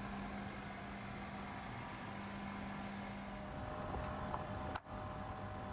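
Refrigerant recovery machine running with a steady mechanical hum while it reclaims refrigerant from an air-conditioner outdoor unit. About three and a half seconds in, the low hum stops and fainter, higher steady tones take its place, with a brief dropout in the sound near the end.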